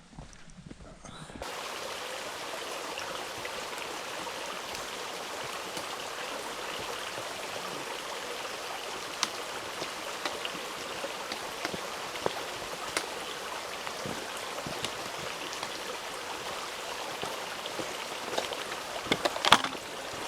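A steady watery hiss begins abruptly about a second and a half in, with scattered light taps through it and a short cluster of louder taps near the end.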